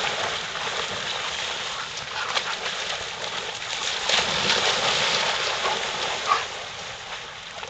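Two dogs running and splashing through shallow pond water: a dense, steady spatter of many small splashes, with one sharper, louder hit about six seconds in.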